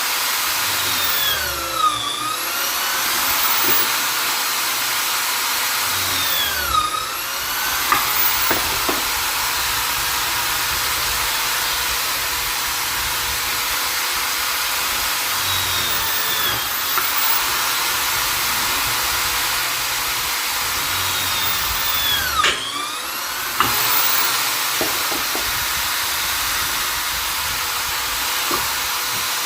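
Vonder electric drill/driver running continuously with a high-pitched whine. Four times, its motor speed dips and climbs back, as when the bit is loaded and released, with a few sharp clicks near the dips.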